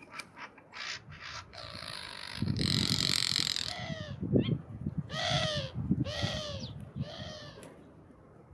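A crow cawing, a run of four or five harsh caws about a second apart.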